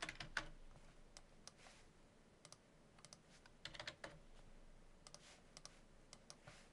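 Faint computer keyboard typing: short, irregular runs of keystrokes.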